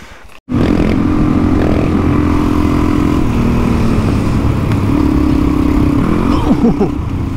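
Suzuki DR-Z400E big-bore single-cylinder four-stroke dirt bike engine running under way on a trail, starting abruptly about half a second in. Its pitch steps down about three seconds in and comes back up around five seconds, as the throttle changes.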